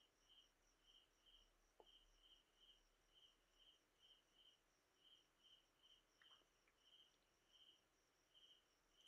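Near silence with a faint insect chirping steadily in the background, about two to three chirps a second with short breaks.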